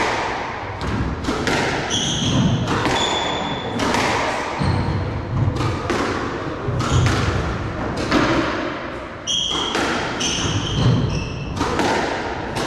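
A squash rally: the ball is struck by the rackets and smacks off the court walls in a series of sharp, irregular thuds. Rubber-soled shoes squeak in short high bursts on the wooden floor as the players change direction, several times.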